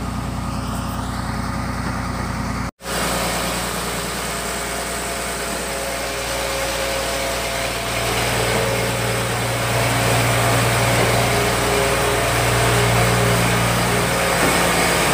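Small engine of the feed-making machinery running steadily at constant speed. It cuts out for an instant about three seconds in, then carries on with a fuller, slightly louder hum toward the end.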